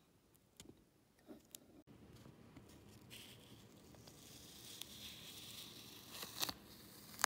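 Transfer paper rustling and crinkling as it is handled and peeled back off vinyl lettering on a glass mug. It starts faint with a few soft clicks, builds from about three seconds in, and has a couple of sharp clicks near the end.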